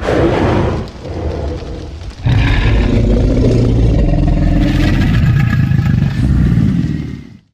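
Tyrannosaurus rex film sound effect: a sudden loud cry that fades over about a second, then a long, deep, rumbling roar of about five seconds that tails off near the end.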